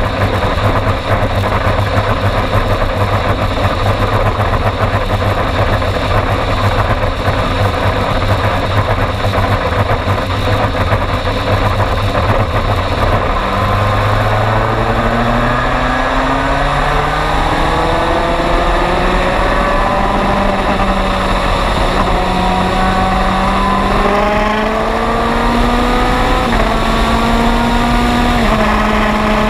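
In-car sound of the MG Lola EX257 sports prototype racing: its turbocharged four-cylinder engine and the wind rush at speed, then, about halfway through, the engine pulling up through the gears, its pitch climbing and dropping back at each upshift.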